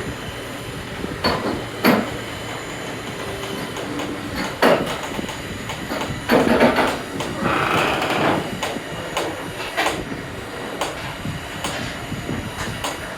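Loaded flatbed trailer rattling and clanking as it is hauled, with the chains and steel deck banging in irregular sharp knocks over a steady rumble of the moving rig.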